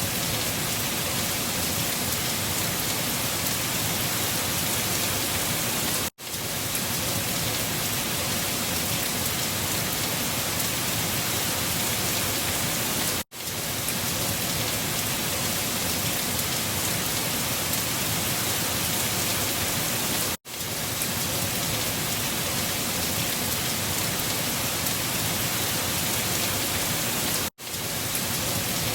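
Steady storm ambience: a dense, even hiss of wind-driven rain and gusting air that cuts out for a split second about every seven seconds, where the looped recording repeats.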